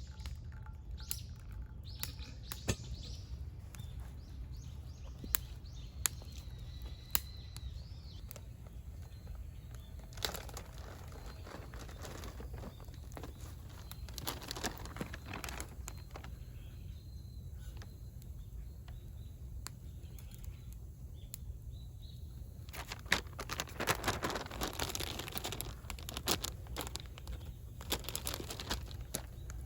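Wild birds chirping in short calls, with scattered sharp clicks and a few stretches of rustling.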